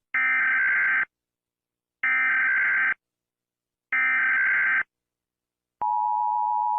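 Emergency Alert System tones: three identical one-second bursts of SAME header data tones, about two seconds apart, then near the end the steady two-tone EAS attention signal begins.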